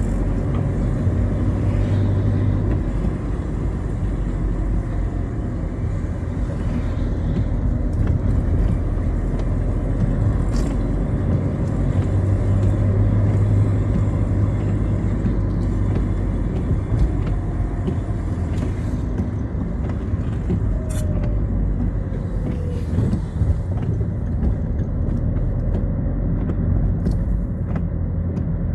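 Citroën Xsara on the move: steady engine and road rumble.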